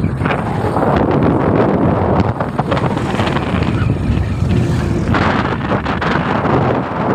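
Wind buffeting the microphone of a phone filming from a moving vehicle, over a loud, steady rush of road and vehicle noise.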